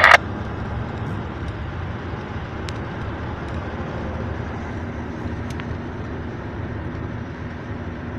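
Steady car cabin noise, a low rumble of engine and road, with a few faint clicks.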